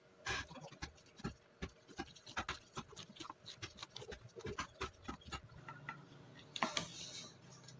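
Light, irregular taps and clicks of small wooden pieces being handled and pressed into place by hand on a hard worktop, with a louder scraping click near the end.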